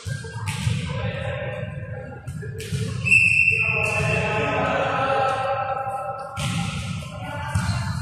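A volleyball thumping against hands and the gym floor several times in an echoing sports hall, with players' voices.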